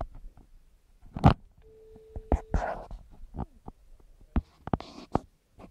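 Clicks, knocks and rubbing of a mobile phone being handled. A short, steady telephone tone sounds for under a second about one and a half seconds in.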